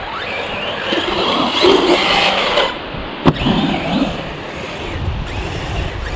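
Brushless electric motor of a Corally Asuga 6S RC buggy whining as it speeds up and lets off, its pitch rising and falling, with a single sharp knock a little past the middle.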